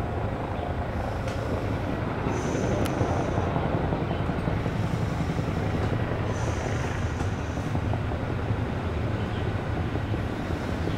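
Helicopter noise from a CH-47 Chinook, its tandem rotors and turbine engines running: a steady, loud, low throbbing beat.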